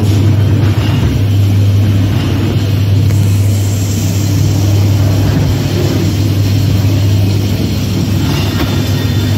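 Ghost train ride car running along its track: a loud, steady low hum with rumbling underneath.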